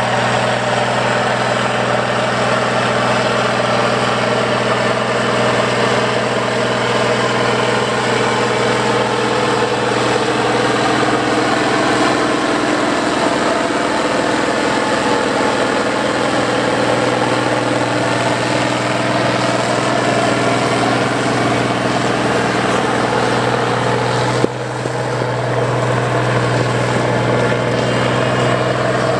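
Allis-Chalmers 7580 four-wheel-drive tractor's turbocharged six-cylinder diesel running steadily under load while it pulls tillage tools through corn stubble. About 24 seconds in the sound breaks off sharply and comes back with the engine louder and deeper.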